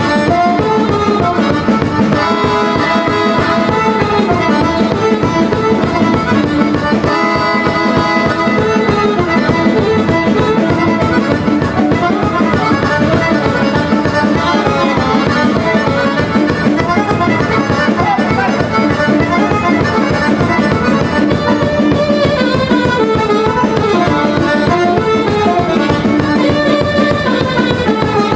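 Serbian folk kolo dance music: an accordion playing a quick, running melody over a steady drum beat.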